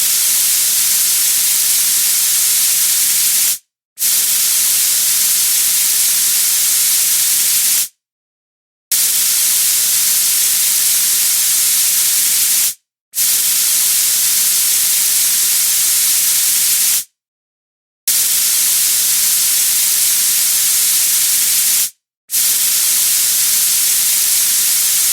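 Compressed air hissing out of a tank in six steady bursts of about four seconds each. Each burst starts and cuts off abruptly, with short pauses between them.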